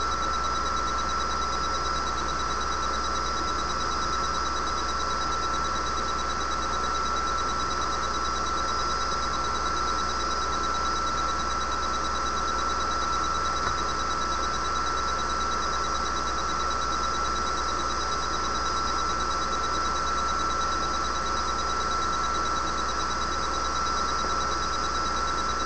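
Steady hiss and low hum of a broadcast audio feed with no talk on it, with a constant high-pitched tone running through it.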